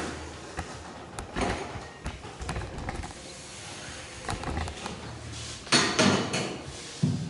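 Chalk scraping along a long ruler held against a chalkboard as a straight line is ruled, in several short strokes, with knocks as the ruler is handled against the board. The loudest scrapes and knocks come about six seconds in.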